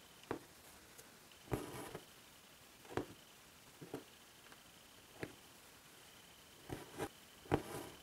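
Hand embroidery needle pricking through taut fabric in soft, irregular taps, with the stranded floss drawn through the cloth in a short rasp twice. The rasps come about one and a half seconds in and near the end.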